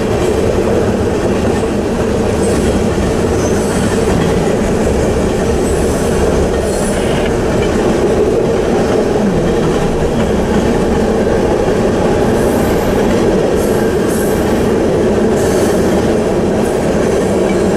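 Norfolk Southern freight train's cars rolling steadily past at a grade crossing, the steel wheels rumbling on the rails without a break.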